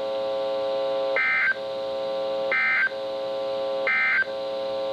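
NOAA Weather Radio's end-of-message signal: three short SAME digital data bursts, each a harsh two-tone electronic screech about a third of a second long, coming about a second and a half apart. They mark the end of the warning broadcast. Between the bursts a steady electronic buzz with a low tone carries on.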